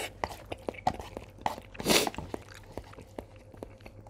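Close-miked chewing of spicy Buldak stir-fried ramen noodles mixed with fried chicken bits: a run of small mouth clicks and smacks, with a louder noisy rush about two seconds in.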